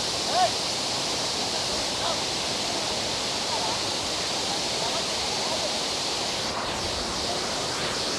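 Steady rushing roar of a waterfall pouring into its pool, with a short louder sound about half a second in.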